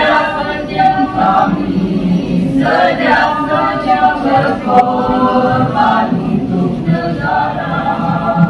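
Mixed school choir of teenage boys and girls singing, in sung phrases of held notes with short breaks between them, including one about two seconds in and another near seven seconds.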